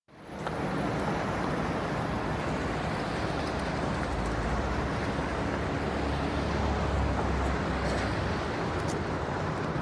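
Light city traffic ambience: a steady wash of passing cars under a low city rumble, fading in quickly at the start, with a few faint ticks on top.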